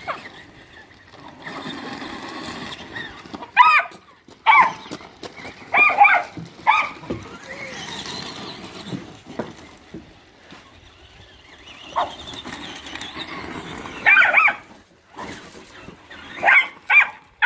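A dog barking excitedly in short barks, several clusters of one to three barks with pauses between.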